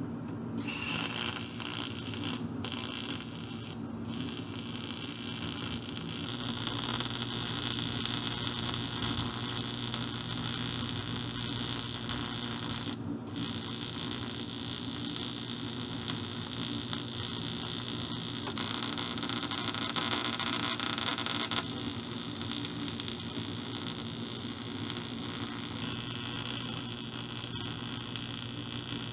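AC TIG welding arc on an aluminum cylinder-head fin: a steady electrical hum with hiss, set at about 45 amps. It breaks off briefly a few times as the arc stops and restarts.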